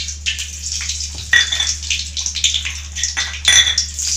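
Mustard seeds and urad dal dropped into hot oil in a pan, crackling and spluttering, with a metal spoon clinking against the pan twice, about a second in and near the end.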